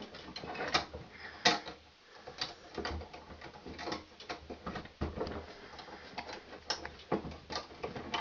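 Bunched Romex wires being pushed and folded into the back of a metal switch box: irregular clicks, taps and rustles of cable and conductors against the metal.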